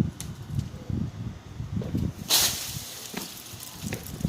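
Faint distant firecracker pops over a low, irregular rumble on the microphone. A short, sharp hiss about two seconds in fades out over half a second.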